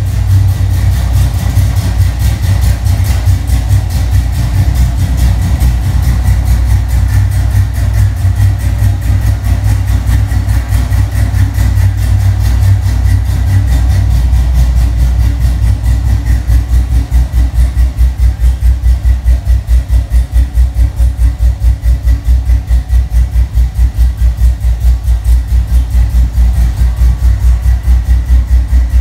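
LS-series V8 in a 1986 Chevrolet Monte Carlo SS idling steadily. From about halfway through, the exhaust pulses come through as a distinct, even throb.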